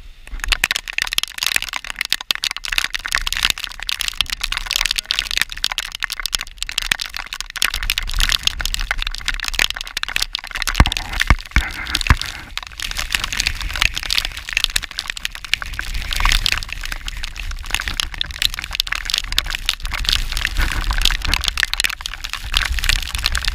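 Heavy wind-driven rain pelting an action camera, a dense continuous crackle of drops striking it, with gusting wind rumbling on the microphone underneath.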